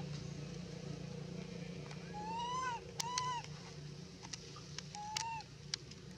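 Baby macaque giving short coo calls, each rising then falling in pitch, about two, three and five seconds in.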